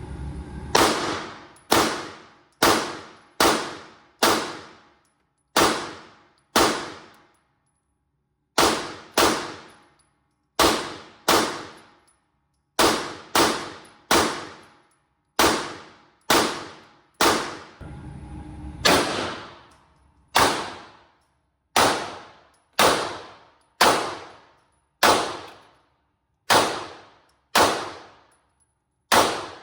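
Pistol shots fired one at a time, about thirty of them in strings of several with short pauses between, each shot with a brief echoing tail.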